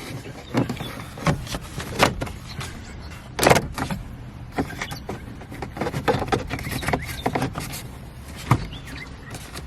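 Plastic instrument-cluster surround on a Honda Civic dashboard being pried and worked loose: scattered clicks and knocks of plastic, the loudest about three and a half seconds in.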